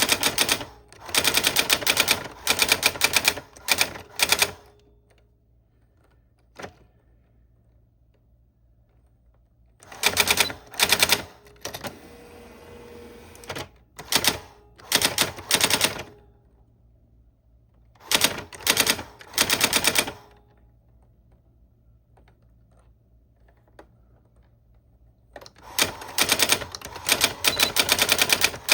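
Old typewriter keys clattering in fast runs of sharp strikes, several runs broken by pauses of a few seconds, with a lone key strike after the first run and a softer rasping stretch about halfway through.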